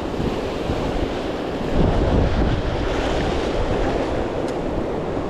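Surf washing against the jetty rocks, with wind buffeting the microphone; a louder surge about two seconds in.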